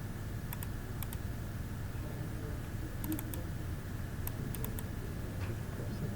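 Light clicking at a computer, mostly in quick pairs like double clicks, scattered over a few seconds against a steady low room hum.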